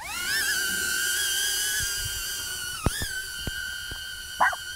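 HoverAir X1 palm-launched camera drone taking off: its propellers spin up into a high whine that rises quickly and then holds steady as it hovers. About three seconds in, the whine dips briefly with a few clicks and recovers.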